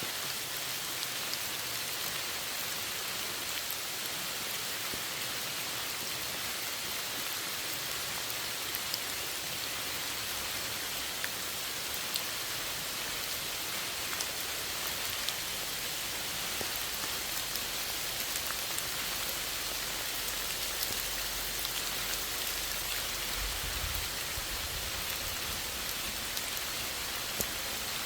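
Steady rain falling, an even hiss with scattered individual drops ticking sharply now and then.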